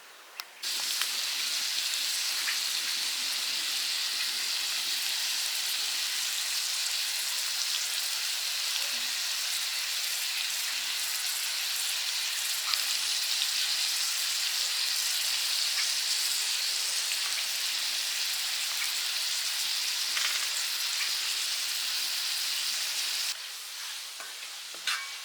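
Food frying with a steady sizzling hiss that starts abruptly under a second in and cuts off about two seconds before the end.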